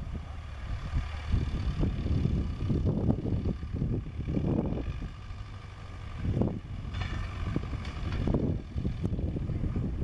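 David Brown 990 Selectamatic's four-cylinder tractor engine running steadily under load as it pulls a mounted reversible plough through the soil, with several gusts of wind buffeting the microphone.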